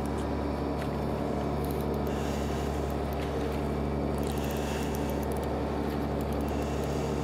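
A fishing boat's engine running with a steady low hum, with water washing at the surface now and then.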